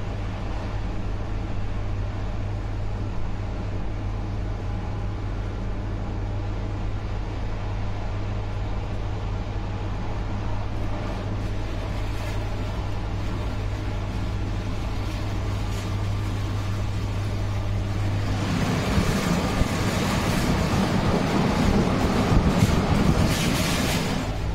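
Intercity train hauled by a MÁV V63 electric locomotive running along the line: a steady low electrical hum over the running noise. A louder rushing noise swells in over the last six seconds and cuts off suddenly near the end.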